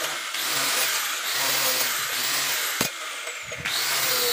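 A 100 mm angle grinder with a flap disc grinding a steel strip in short passes: a harsh grinding hiss while the motor's high whine drops under load and recovers between passes. About three seconds in there is a click and a short quieter gap, then grinding resumes.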